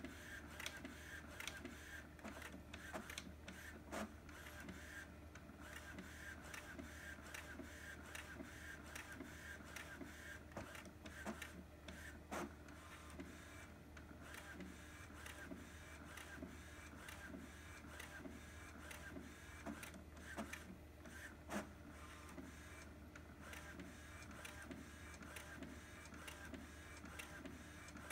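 Epson XP-8500 inkjet photo printer running as it feeds paper and prints a print-head alignment pattern: a steady mechanical whir with many small clicks and ticks.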